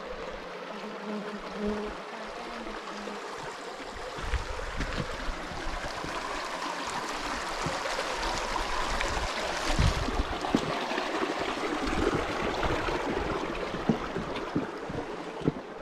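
Steady rushing and trickling of a flowing mountain stream, growing louder toward the middle, with a few short low thumps.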